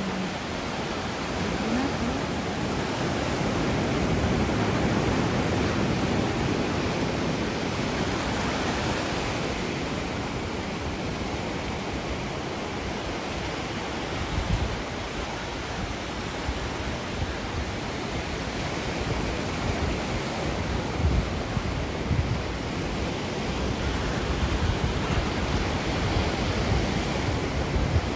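Ocean surf: waves washing in as a continuous rushing noise that swells a few seconds in. In the second half, wind gusts buffet the microphone with low, irregular rumbles.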